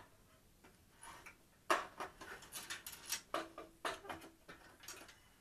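Handling noise from a 3-LCD projection TV's optical assembly, its plastic housing and steel mounting frame clicking and knocking irregularly as the lens block is lifted and turned. The taps start about a second in and come in a loose cluster until near the end.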